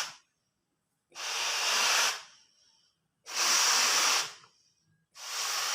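Air hissing in three separate bursts of about a second each, with silent gaps between them, as a balloon is inflated.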